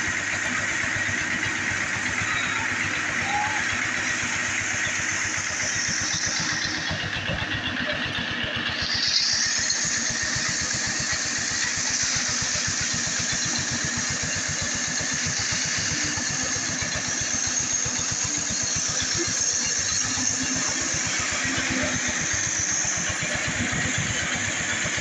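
Diesel engine of a Komatsu PC200 excavator running steadily. Its higher part briefly drops away and returns about a third of the way through.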